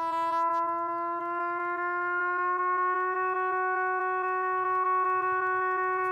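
Music: one long held horn-like note that slides slightly up in pitch about two to three seconds in, over a low rumble, with a brief high shimmer near the start.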